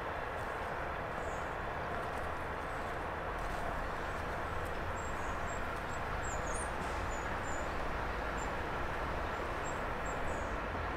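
Steady rural outdoor ambience: an even low rumble with faint, short bird chirps scattered high above it.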